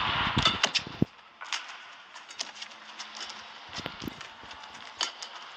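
Badminton rally in an indoor hall: sharp clicks of rackets striking the shuttlecock and knocks of players' shoes on the court, spaced irregularly. For about the first second a louder hall noise lies over them and then drops away suddenly.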